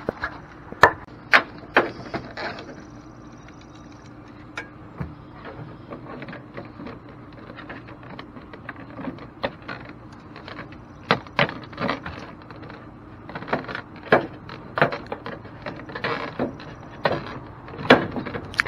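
Vinyl soffit panels being handled and pushed into place, an irregular string of sharp plastic clicks, knocks and snaps.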